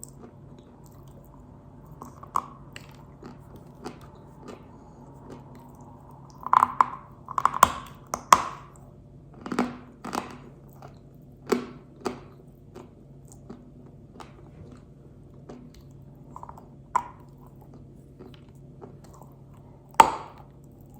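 Pink Uzbek edible clay being bitten and chewed with crisp crunches. There is a dense run of loud crunches in the middle and one sharp crunch near the end, with softer chewing clicks between, over a faint steady hum.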